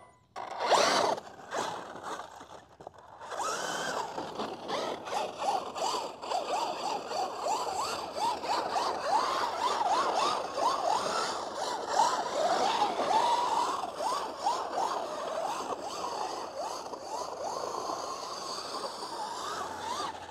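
Losi Super Baja Rey 2.0 1/5-scale electric RC truck driven hard on grass: short throttle punches in the first few seconds, then continuous driving with the brushless motor's whine wavering quickly up and down with the throttle, mixed with the scrape of tyres tearing at turf and dirt.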